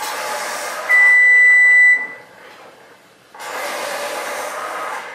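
A single loud electronic beep lasting about a second, starting about a second in, over a hissing noise that stops soon after it. A second stretch of similar hiss starts past the middle and runs almost to the end.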